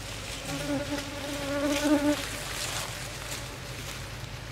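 Bees buzzing around a nest being eaten, with one bee passing close from about half a second in to just past two seconds, its buzz wavering in pitch, over a steady low hum of others.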